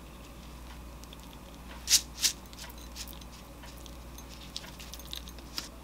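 Sesame seeds shaken from a glass shaker over a bowl: two quick rattling shakes about two seconds in, then a few lighter scattered ticks.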